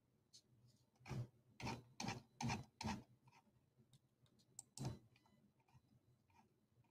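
Faint short clicks: five in quick, uneven succession between about one and three seconds in, then one more near five seconds.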